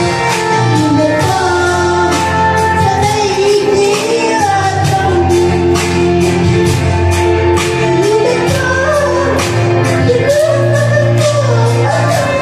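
A child singing a melody into a microphone over amplified backing music with a steady beat.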